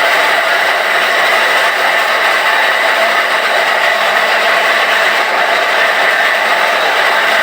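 Handheld electric power tool running steadily under a woodworker's hands, its motor giving an even whine with a high steady tone.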